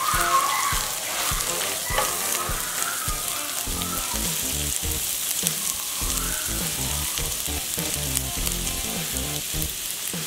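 Sliced onions and garlic sizzling in hot oil in a ceramic frying pan, with a silicone spatula stirring and knocking against the pan.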